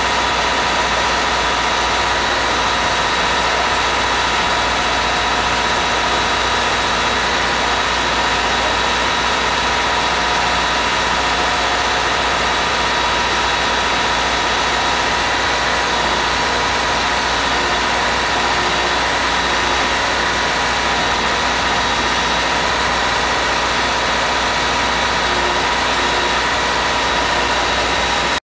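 Excavator diesel engine and hydraulics running steadily at a low, even speed, with a steady high whine over the engine noise. The sound cuts off abruptly near the end.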